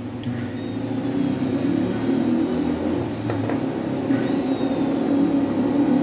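Wolf Gourmet blender motor, its base opened up with no jar fitted, running on its automatic Smoothie program: a steady motor whir that grows gradually louder as the program raises the speed. A click just after the start.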